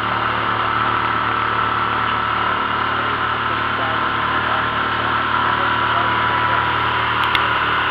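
Outboard motor of a small boat running steadily under way.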